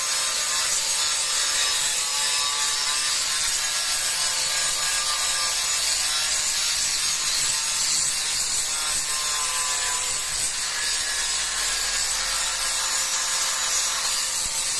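Power grinder running steadily as it grinds marble stair stone: a high, gritty hiss with a faint motor whine underneath.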